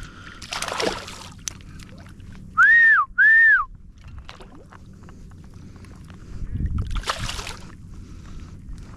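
Shallow water splashing twice, once near the start and again about seven seconds in. Around three seconds in come two short, loud whistled notes, each rising and then falling.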